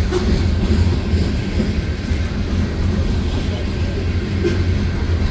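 Union Pacific freight train's cars rolling past close by: a loud, steady low rumble of steel wheels on rail.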